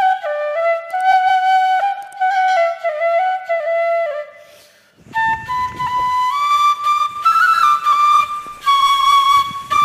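Background music: a solo flute playing a slow melody of held, stepping notes. The phrase fades out about four and a half seconds in, and a new, higher phrase begins about a second later.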